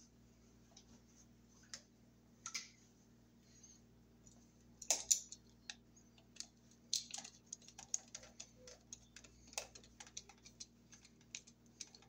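Scattered light clicks and taps of a screwdriver and copper wire on a light switch's brass terminal screw as the wire loop is fitted and tightened, with a louder cluster about five seconds in.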